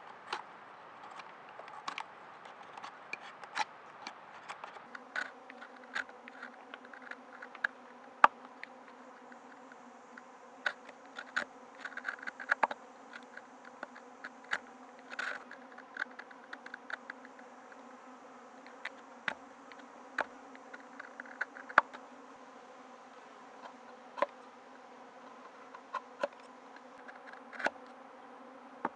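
An insect buzzing steadily, joined about five seconds in by a lower, stronger hum, with many irregular sharp clicks and snaps throughout.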